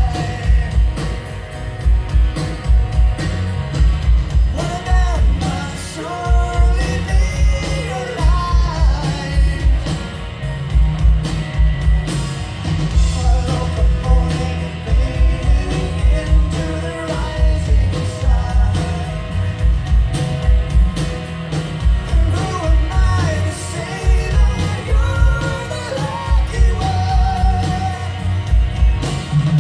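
Rock band playing live, a lead voice singing over loud drums, bass, electric guitars and keyboards, recorded from the audience in an arena.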